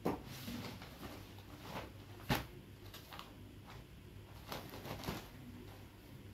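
Folded cotton sarees and a blouse piece being handled and laid down on a cloth-covered surface: soft fabric rustling with a few brief sharp slaps, the loudest at the very start and a little over two seconds in. A faint steady low hum runs underneath.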